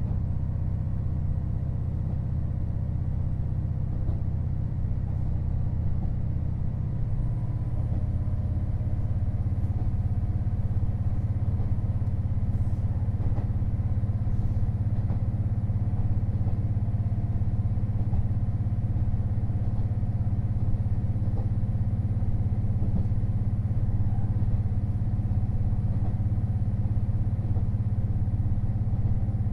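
KiHa 48 500-series diesel railcar running, its diesel engine giving a steady low drone. About seven seconds in, the engine note changes and grows slightly louder.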